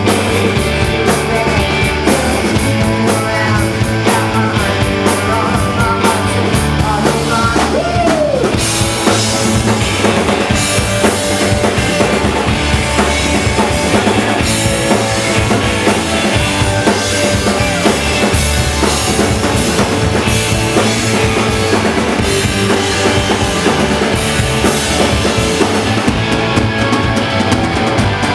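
Live rock band playing an instrumental passage with no vocals, the drum kit's kick and snare prominent over guitars and bass.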